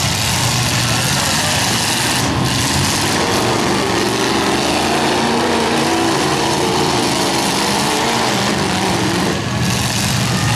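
Several demolition derby cars' engines running hard together, revs rising and falling through the middle as the cars accelerate and manoeuvre.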